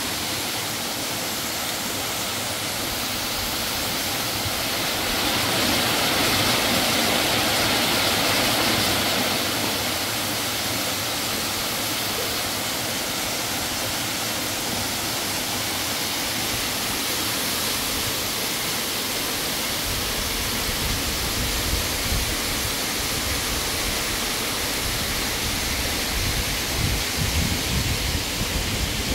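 Small waterfall pouring down a rock face into a shallow pool: a steady rush of falling water, loudest a few seconds in. In the last third an uneven low rumble joins it.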